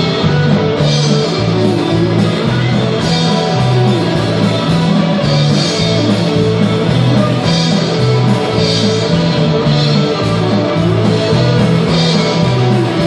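Small rock band playing live, an instrumental passage with no singing: guitars strumming over a drum kit, with cymbal hits every couple of seconds.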